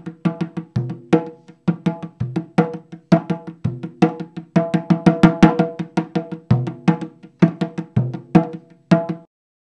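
Percussion music: a fast, uneven run of sharp drum strokes, some deep and booming, with ringing pitched tones, that stops abruptly near the end.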